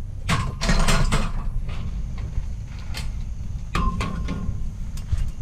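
Pieces of scrap metal clanking and knocking together as they are handled: a cluster of knocks in the first second, then single clanks near three and four seconds, two of them with a brief metallic ring. A steady low rumble runs underneath.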